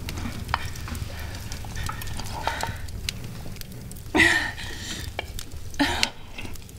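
A metal spoon clinking and scraping against a bowl as someone eats hungrily, in several sharp clicks. About four seconds in, and again near the end, come short throaty sounds from the eater, like a cough or a gulp.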